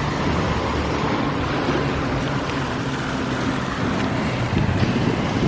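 An engine running steadily nearby: a constant low hum under a wash of outdoor noise.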